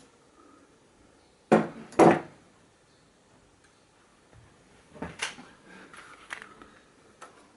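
Two sharp metallic knocks about half a second apart, then a run of lighter clicks and rattles: metal hand tools and small-engine governor linkage parts being handled on a workbench.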